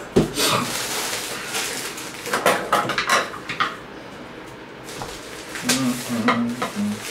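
Packaging of a mailed gift being handled and opened by hand: irregular rustling, crinkling and clattering. Near the end comes a short low hum of a man's voice.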